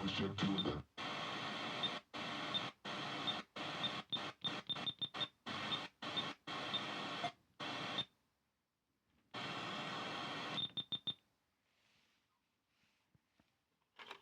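Sony CDX-GT424U car stereo stepping through radio frequencies: bursts of hiss, each cut off by a short muted gap, with short high beeps as it steps. About eleven seconds in it falls silent apart from faint ticks.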